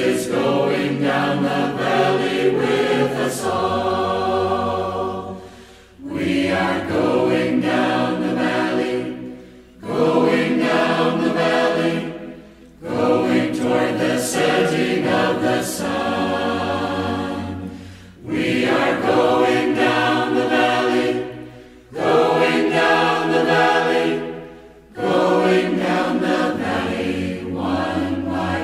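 A choir singing a slow piece in phrases a few seconds long, with short breaks between them.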